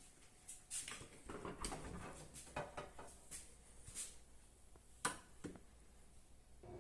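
Scattered clicks, light knocks and rustling of things being handled, over about five seconds.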